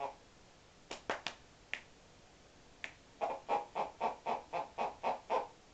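Alaskan Malamute making a quick run of about nine short, evenly spaced sounds, about four a second, in the second half. A few sharp clicks come before it.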